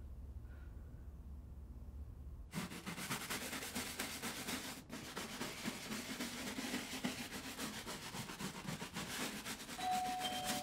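A low room hum, then from about two and a half seconds in, steady hand-scrubbing of a wooden floor. A faint steady tone joins near the end.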